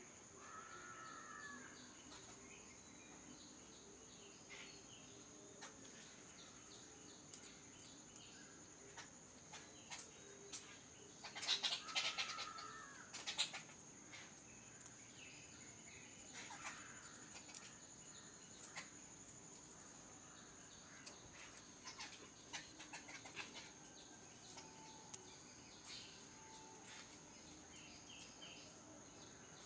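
Sparrows chirping faintly in short scattered notes over a steady high insect drone, with a louder brief burst of rustling and fluttering about twelve seconds in.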